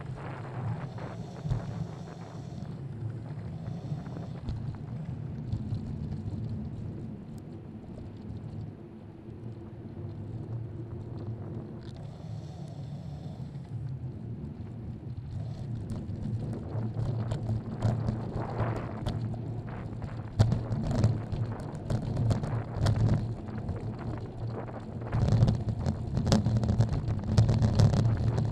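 Wind buffeting the microphone of a helmet camera on a moving bicycle, over a steady low rumble of road and traffic. From about halfway through come frequent short knocks and rattles, which grow louder toward the end.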